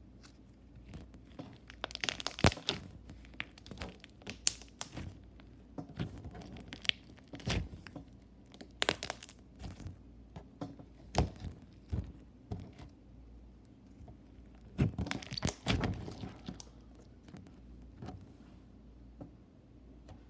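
Slime being stretched and squeezed by hand, giving irregular clusters of sharp sticky clicks and pops, busiest about two seconds in and again around fifteen seconds in.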